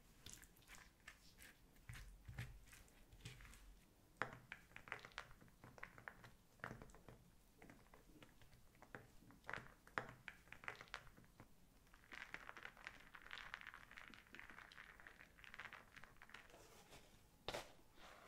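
Quiet kitchen food-preparation sounds: scattered soft taps, clicks and crunches, with a stretch of rustling about twelve seconds in.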